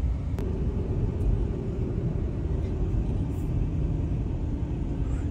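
Steady low rumble of a moving car heard from inside the cabin: road and engine noise while driving, with a faint steady hum and a light click about half a second in.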